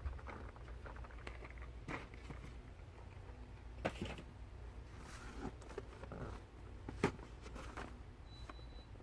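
Quiet indoor room tone with a low hum, broken by scattered small clicks and knocks, two sharper clicks about four and seven seconds in, and a brief high beep near the end.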